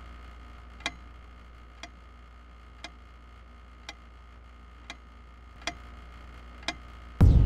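Wall clock ticking, one sharp tick about once a second. Near the end a loud low hum suddenly comes in.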